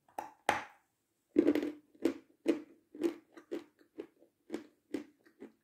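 Dry meringue crunching as a piece is bitten off about half a second in, then chewed with steady crisp crunches about two a second.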